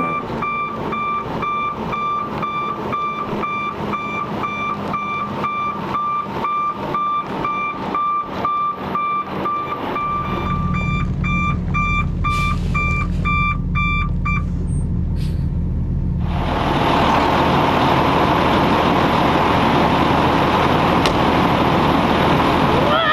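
Dump truck backup alarm beeping over its engine, the engine growing louder about ten seconds in. The beeping stops past the middle, and a loud, steady rushing noise takes over for the rest.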